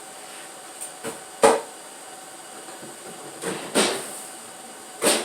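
Metal engine parts clanking as they are handled and set down: four or five sharp knocks, the loudest about a second and a half in. A steady fan hiss runs underneath.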